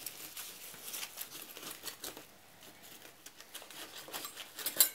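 Clear plastic packaging crinkling and rustling as hands handle it in a cardboard box, in irregular light crackles with a louder burst of crackling near the end.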